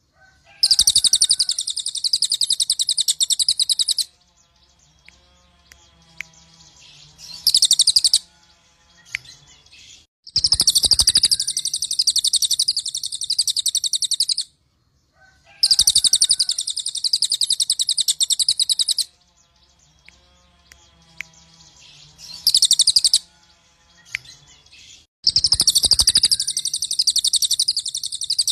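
A cililin songbird singing loudly: long, rapid, high-pitched trilling phrases of three to four seconds each, separated by short pauses with soft, thin notes. The same run of phrases plays through twice.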